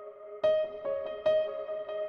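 Background music in a calm ambient style: sustained tones, with a new note struck about half a second in and another just after a second.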